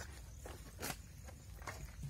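Heavy knife stroking and cutting into a whole catla fish's scaly skin: a few short separate strokes, the clearest just under a second in.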